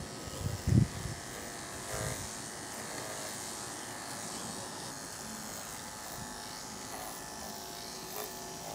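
Andis two-speed electric pet clippers running steadily through a dog's coat: a quiet, even buzz. Two low thumps in the first second.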